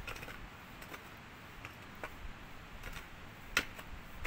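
Shovel digging into stony soil by hand: irregular clicks and scrapes of the blade on earth and stones, the loudest about three and a half seconds in.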